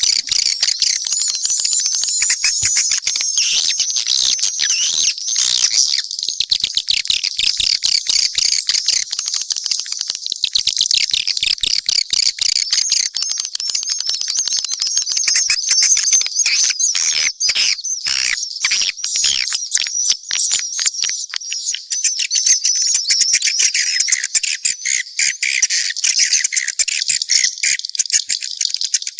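Dense, unbroken twittering and chirping of many edible-nest swiftlets, shrill and high, with rapid clicks mixed in. This is a mixed swiftlet calling sound, the kind of recording that is played to lure swiftlets into a nesting house.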